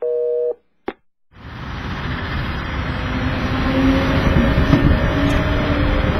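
A brief steady electronic tone and a single click, then the rumble of a suburban train fading in and running on steadily, with a faint whine that shifts in pitch.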